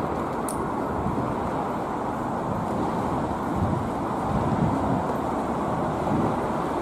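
Steady low outdoor background noise, an even rumble without distinct events.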